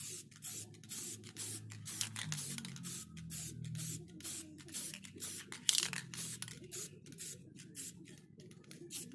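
Aerosol spray-paint can hissing in many short, rapid bursts as yellow paint is sprayed onto a phone's back cover.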